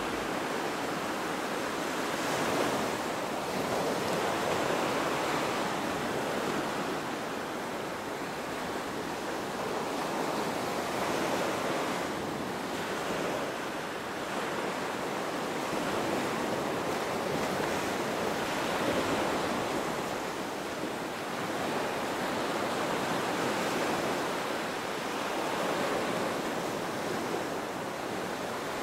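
Ocean surf washing onto a sandy beach, a steady rush that swells and eases every few seconds as waves break and run back.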